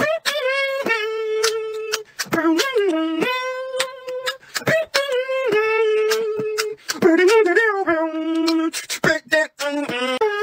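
Beatboxing: one voice holds vocal notes that step and slide between a few pitches, broken every second or so by sharp percussive mouth sounds.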